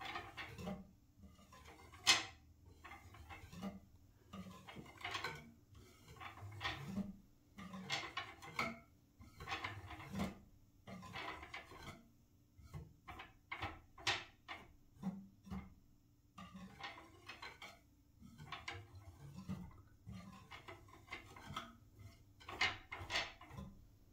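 Fingers tapping and knocking on the wooden spindles and seat of a bow-back Windsor chair, in irregular runs of light taps with short pauses. Each tap has a short low wooden knock, and the sharpest tap comes about two seconds in.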